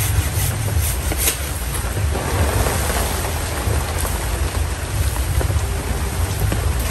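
Heavy rain pouring down steadily, with a low rumble of wind on the microphone.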